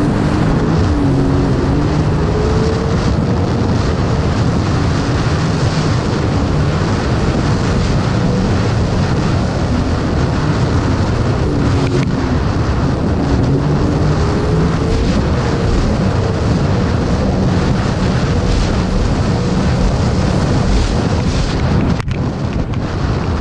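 Sea-Doo GTR jet ski running at full throttle at about 87 km/h. The engine and jet pump drone under heavy wind noise on the microphone.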